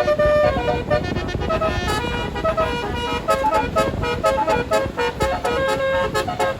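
A tour bus's telolet basuri multi-trumpet air horn playing a quick melody, its notes changing every fraction of a second, over a low rumble.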